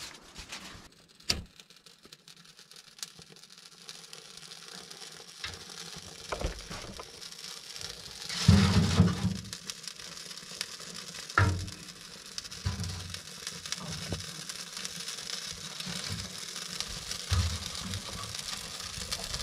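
Wood fire catching in a tent wood stove, crackling and hissing more and more as it gets going, with a few knocks and a louder thump about halfway through.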